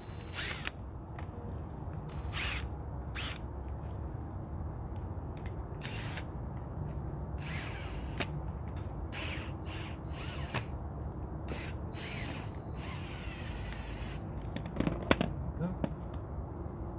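Thermoelastic caulking being cut and scraped off a door frame: a run of short, irregular scraping strokes over a steady low rumble, with a sharper click near the end.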